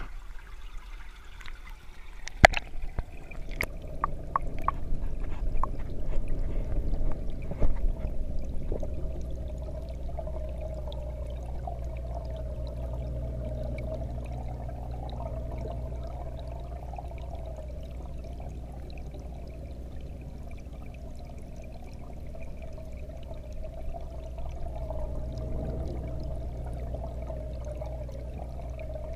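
Aquarium heard from a camera under the water: a steady low hum and watery noise with a wavering mid-pitched tone. In the first several seconds come handling knocks and one loud sharp clack as the camera goes into the tank.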